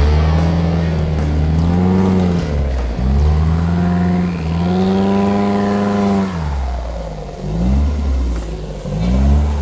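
Suzuki Vitara off-road 4x4's engine revving up and easing off again several times as it drives over rough ground, with the longest high-rev stretch about halfway through.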